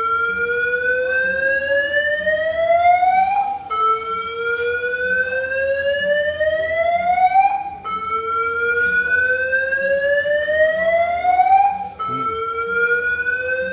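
Airport alarm sounding a repeating slow-whoop tone: each sweep rises steadily in pitch for about four seconds, cuts off briefly and starts again low.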